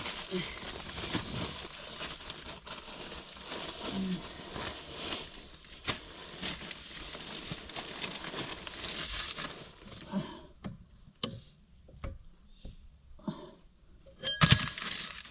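Rustling and scraping among debris with scattered small clinks for about ten seconds, then a few separate knocks, the loudest a little before the end.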